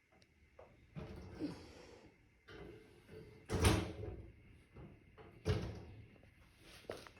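Knocks and clunks of equipment being handled, the loudest a sharp knock about halfway through and another about two seconds later.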